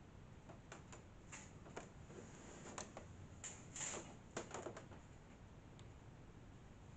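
Faint rustling of a curtain being pulled aside, with a scatter of light clicks, loudest about four seconds in.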